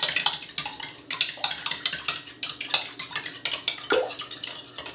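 Eggs and oil being beaten together in a bowl: a utensil clicks rapidly and unevenly against the bowl's sides, with one louder knock about four seconds in.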